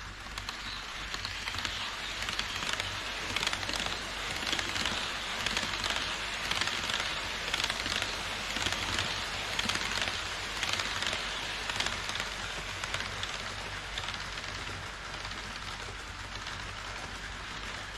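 HO-scale model E5 series Shinkansen running on sectional track: a steady rushing clatter of metal wheels on the rails, with fine rapid clicking. It swells as the train passes close and eases as it runs off along the viaduct.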